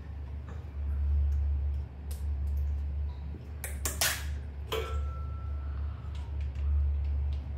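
A small plastic yogurt cup being opened: a few sharp clicks and a short noisy tear about four seconds in as its foil lid is pulled off, then a light clink with a brief ring. A steady low hum runs underneath.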